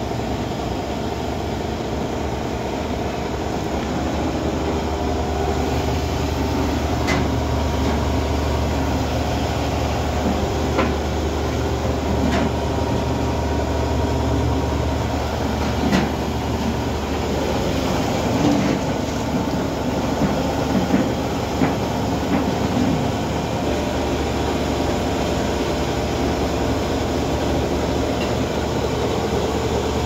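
Electric belt-driven flour mill (chakki) running steadily, its motor turning the grinder through a V-belt with a continuous grinding drone and hum. A few sharp clicks and knocks stand out over it about a quarter to two-thirds of the way in.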